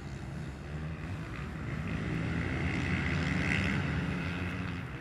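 Several motocross dirt bikes racing on the track, their engines running together and swelling to the loudest about three and a half seconds in, then fading toward the end.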